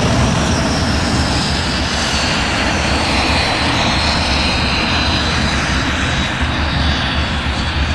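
English Electric Canberra's twin Rolls-Royce Avon jet engines running at taxi power as the jet taxis away, a loud steady rumble with a high whine that drifts slightly lower.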